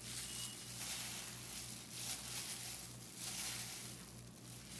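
Clear plastic food-handling gloves crinkling and raw ground beef squishing as handfuls of mince are scooped from a bowl and dropped onto the spice mixture. The sound comes as a series of irregular rustles.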